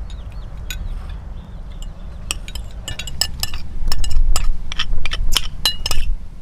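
Dishes and eating utensils clinking: a run of sharp clinks with a short ring, few at first, then quick and louder from about two seconds in.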